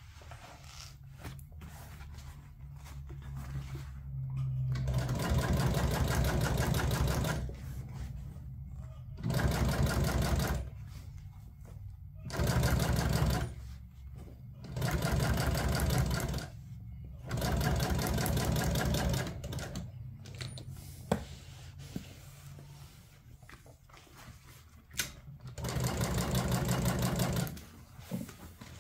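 Industrial sewing machine top-stitching a seam in a vinyl seat panel, running in about six short bursts of fast, even stitching. Each run lasts one to two seconds, with pauses between runs while the panel is turned and repositioned.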